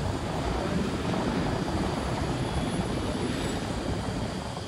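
Catamaran passenger ferry's engines and propellers driving it away from the wharf: a steady deep engine drone with churning propeller wash, easing a little near the end.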